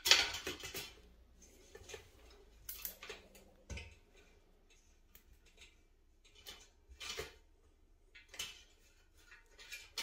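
Metal sieve insert clinking against a stainless steel cooking pot and rosemary sprigs rustling as they are pressed down and arranged by hand. A series of short clinks and rustles with quiet gaps, the loudest right at the start, with a dull knock a little under four seconds in.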